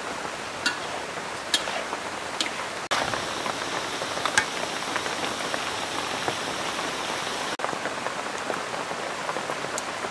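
Pork intestine and vegetables sizzling in a hot wok, a steady hiss, with a few sharp clinks of a metal ladle against the wok as the stir-fry is stirred.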